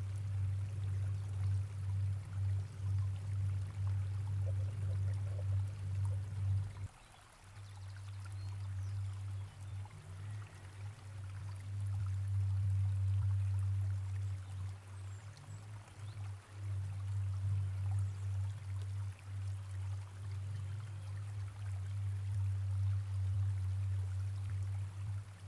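Background soundtrack: a low, steady rumbling drone with a watery wash. It drops away for a moment about seven seconds in, then returns.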